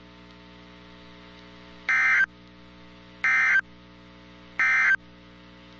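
Emergency Alert System end-of-message code on NOAA Weather Radio: three short bursts of warbling digital data tones about 1.3 seconds apart, over a faint steady hum. The bursts mark the end of a warning broadcast.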